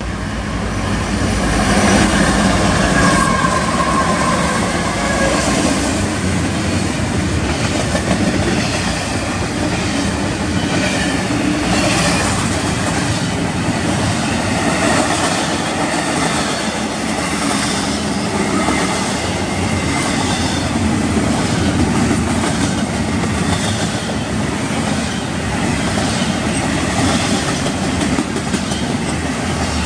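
Union Pacific intermodal freight train passing close at speed: three diesel locomotives led by an EMD SD70ACe go by first, loudest a few seconds in. The double-stack well cars follow with a steady rumble and repeated clacks of wheels over rail joints.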